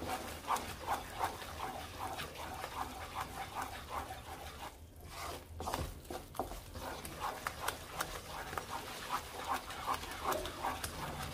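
Wooden spatula stirring and scraping besan roasting in ghee in a nonstick kadhai: a rhythmic scrape about three times a second, with a short break about five seconds in.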